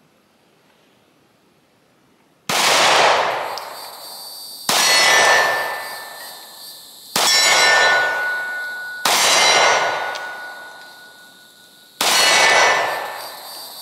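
Five shots from a Glock 43X 9mm pistol, spaced two to three seconds apart, each followed by a hit steel target ringing with a clear tone that fades over a second or two.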